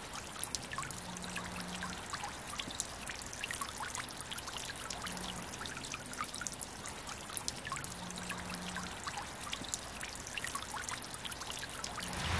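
Water trickling and babbling steadily, dotted with many small drips and splashes.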